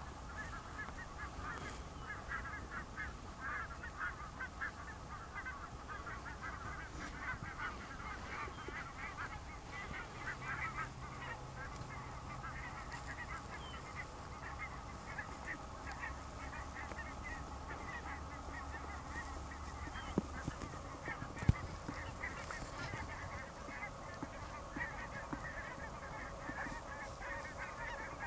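A flock of geese calling without a break, many short overlapping honks. Two or three sharp clicks come about two-thirds of the way through.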